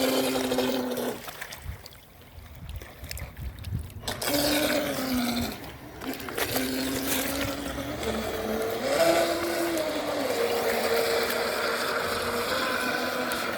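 Traxxas M41 RC boat's brushless electric motor whining as the throttle is worked. It cuts out about a second in and comes back about four seconds in, stops briefly near six seconds, then runs on with its pitch rising and falling as the speed changes.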